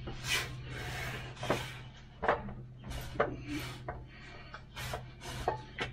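Irregular scuffing and rubbing noises, one or two a second, from someone moving about under a truck, over a steady low hum.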